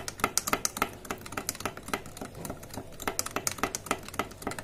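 Metal spoon stirring milk in a drinking glass, clinking rapidly against the glass wall, several clicks a second, as sugar and instant yeast are dissolved in the warm milk.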